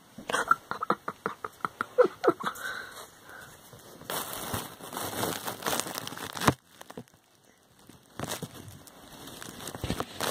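Dry wood-shaving bedding rustling and crackling as it is disturbed, with a quick run of sharp clicks over the first few seconds, then two longer stretches of rustling separated by a brief lull.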